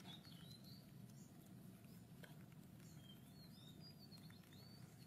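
Near silence with a low steady background hum and a scatter of faint, short, high-pitched animal chirps, clustered at the start and again past the middle.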